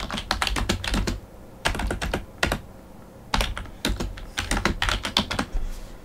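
Typing on a computer keyboard: quick runs of keystrokes in three bursts with short pauses between them.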